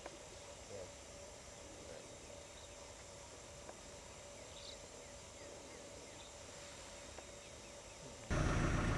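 Faint outdoor ambience with a steady low hum and a few faint chirps. Near the end a vehicle engine idling cuts in abruptly and is much louder.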